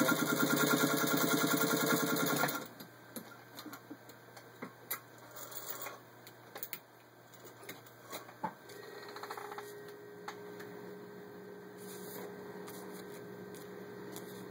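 Singer 201-2 sewing machine, driven through gears by its built-in motor, stitching fast and steadily through four layers of vinyl upholstery and stopping suddenly about two and a half seconds in. After that come scattered light clicks as the material is handled, and a faint steady hum from about nine seconds in.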